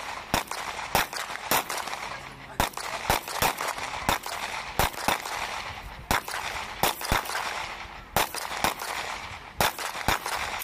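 Several pistols firing at once on a range: about twenty sharp shots from different shooters, at uneven, sometimes overlapping intervals.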